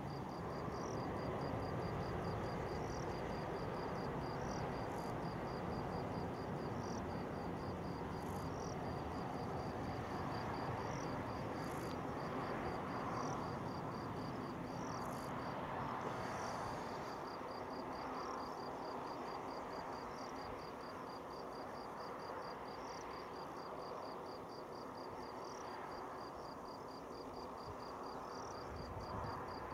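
Insects chirping in a fast, even pulse over the steady low rumble of a Boeing 737-800's CFM56 jet engines at low power as the airliner taxis after landing.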